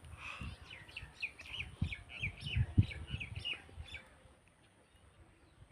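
A bird chirping: a quick run of short, repeated chirps, about four a second, that stops about four seconds in.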